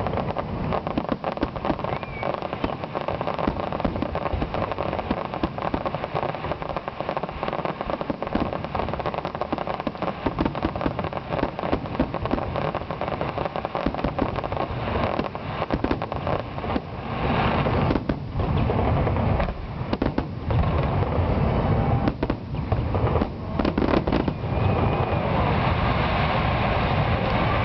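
Fireworks display: aerial shells bursting in a rapid, overlapping barrage of bangs and crackles, with no pause between them. The bangs come thicker and run together more after about two-thirds of the way in.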